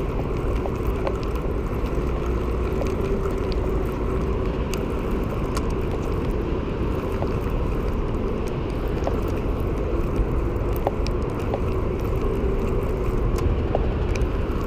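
Steady city road traffic rumble, with a faint steady hum and scattered light clicks over it.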